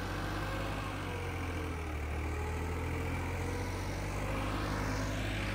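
New Holland tractor's diesel engine running steadily under load as it pulls a disc harrow through loose, dry soil.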